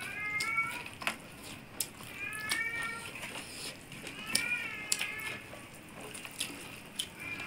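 A cat meowing three times off camera, each meow rising and falling in pitch, with sharp clicks and smacks from people eating by hand in between.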